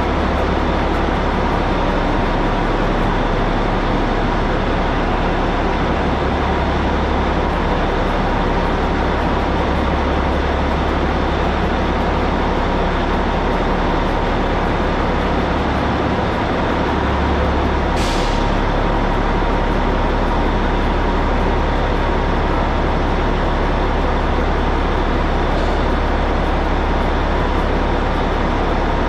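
Caterpillar 627G scraper's diesel engine running steadily, with a short hiss about two-thirds of the way through.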